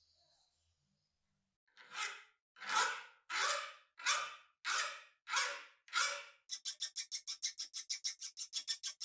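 Flat steel hand file rasping across a rusty cast-metal meat grinder part clamped in a vise. After a quiet first second and a half come seven long, slow strokes, then quicker short strokes at about five a second.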